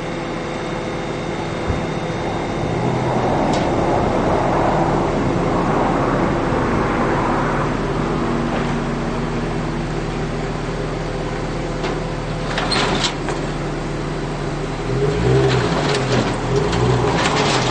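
Vehicle engine running, sped up eightfold, as an Infiniti G35 coupe is driven up onto a car-hauling trailer: a steady hum with noise over it, and a cluster of sharp clicks and knocks about three-quarters of the way in and again near the end.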